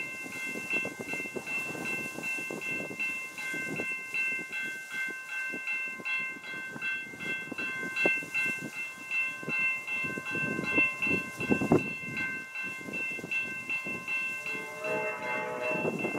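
Railroad grade-crossing bell ringing steadily with a fast, even stroke as an Amtrak train approaches. About fifteen seconds in, the horn of the approaching Amtrak P42DC locomotive begins to sound.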